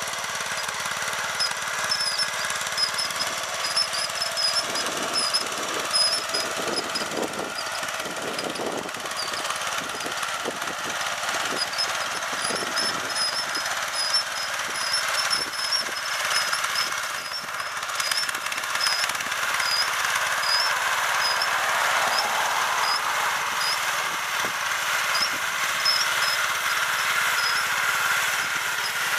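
Snapper LT11 riding lawn tractor's small engine running steadily as it pushes a front plow blade through snow on pavement, with irregular clunks and knocks between about five and thirteen seconds in. A faint high chirp repeats over much of it.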